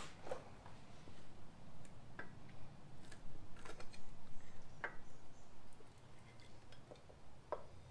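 A handful of light, scattered clicks and taps as the upper valve cover of a Harley-Davidson Sportster EVO engine is pried and worked loose from the middle valve cover.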